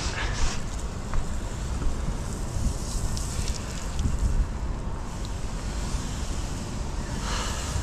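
Wind buffeting the microphone, over the hiss of a garden-hose spray nozzle rinsing water onto a yacht's fibreglass superstructure. The spray hiss swells at the very start and again near the end.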